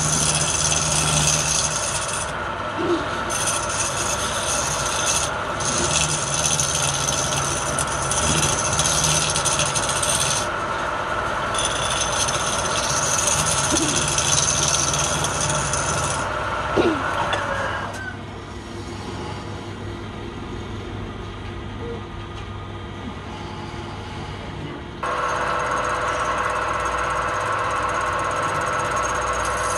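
A wood lathe spins a wooden blank while a hand-held gouge cuts it. The result is a continuous scraping, rasping hiss of the cutting over the low hum of the lathe. Past the middle the cutting noise drops away for several seconds, leaving mostly the lathe running, and then it returns.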